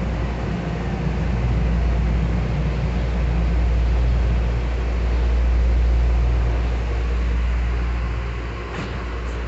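A Miami-Dade Metrorail train running, heard from inside the passenger car: a steady low rumble that swells slightly about midway and eases off near the end.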